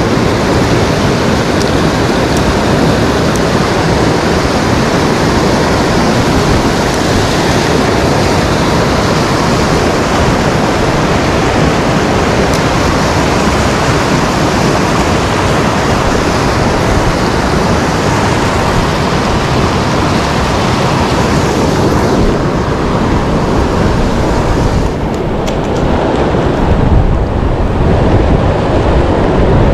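Fast whitewater river rushing over boulders: a loud, steady rush of water with no let-up.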